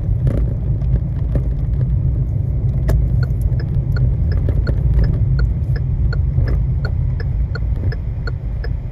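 Car interior: steady low road and engine rumble while driving, with a turn signal ticking evenly at about two and a half ticks a second from about a second and a half in.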